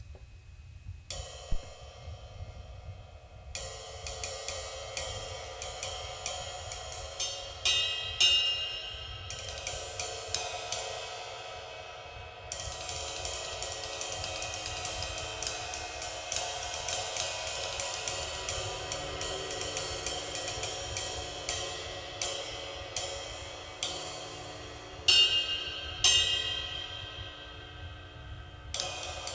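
Zildjian Avedis 24-inch Medium Ride cymbal struck over and over with a stick in a steady ride pattern, its wash building up under the strokes, with a few harder accents.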